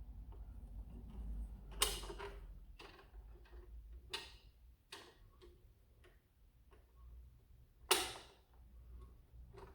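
Hard plastic parts of a toy foam-dart blaster clicking and knocking as they are handled and fitted together: a few sharp clicks at irregular moments, the loudest about 2 s and 8 s in.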